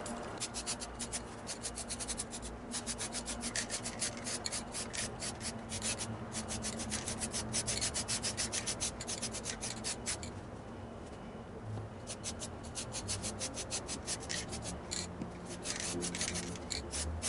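An aerosol spray-paint can of flat black being shaken hard, its mixing ball rattling in quick, even clicks several times a second, in long stretches with short pauses.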